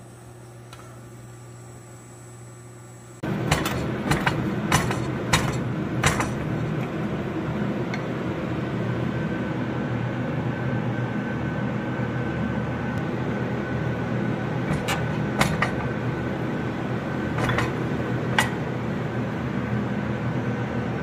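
Steady running noise from blacksmith shop equipment starts abruptly about three seconds in, after a quiet hum. It has a low hum and a faint whine, with sharp clicks scattered over it.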